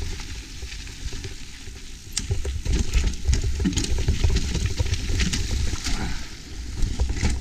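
Mountain bike rolling down a rocky trail, its tyres crackling over rock and grit with the bike rattling in short clicks. Wind buffets the camera microphone underneath.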